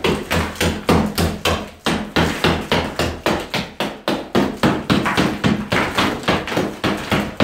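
Claw hammer striking an old lath-and-plaster wall in rapid blows, about four a second, knocking plaster off the wooden lath.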